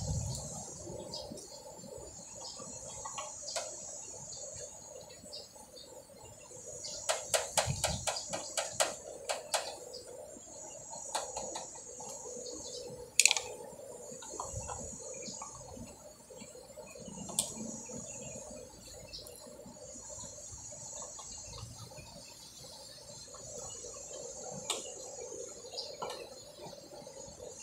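Light clicks and taps from hands working in the wiring of an opened air-conditioner unit, with a quick run of clicks about seven seconds in and one sharp click near the middle. Insects trill in repeated high bursts behind it.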